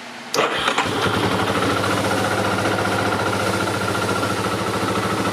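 Yamaha Terra Pro side-by-side's engine being started: a brief crank about a third of a second in, catching within about half a second, then idling steadily.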